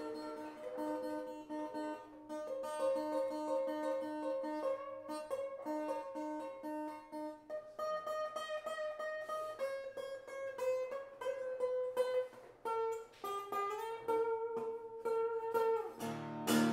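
Improvised solo acoustic guitar picked on a small koa-wood guitar: single notes and short melodic runs, with a note sliding up partway through and a fuller strummed chord near the end.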